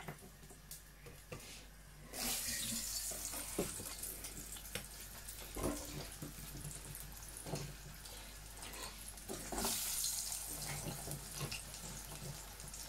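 Red potato chips dropped into hot oil in a saucepan to par-fry, the oil sizzling when a handful goes in about two seconds in and sizzling up again when a second handful goes in near ten seconds, with light knocks of potatoes against the pan.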